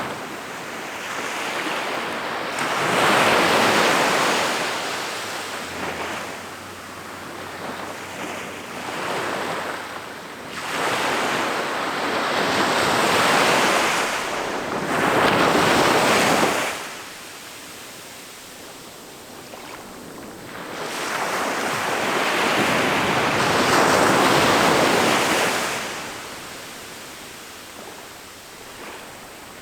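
Ocean waves breaking on a beach, a rushing surf that swells and ebbs, with four loud breakers about 3, 12, 15 and 24 seconds in and quieter wash between.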